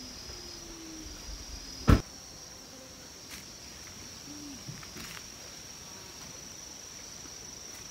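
Crickets or other autumn insects trilling, a steady high-pitched drone. A single sharp click sounds about two seconds in, with a few fainter ticks later.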